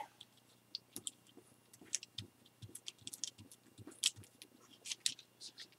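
Thin Mylar streamer crinkling faintly under the fingers as it is folded over the rubber shock cord and pressed down: scattered light crackles and clicks.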